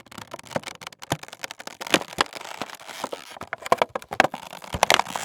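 Toy packaging being opened by hand: rustling and crinkling with a dense run of small crackles and clicks, busier toward the end.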